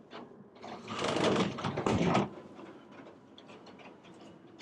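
A door being moved, a scraping rattle lasting about a second and a half.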